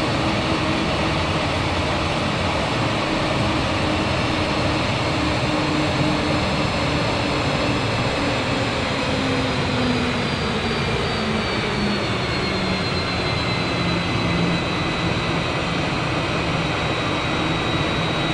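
Jet airliner engines running with a steady, even rush of noise, their whine sliding slowly lower in pitch around the middle of the stretch.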